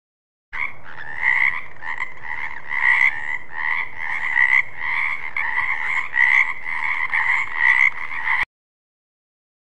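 Frog croaking in a fast, even series of calls, about two or three a second, starting half a second in and cutting off abruptly near the end.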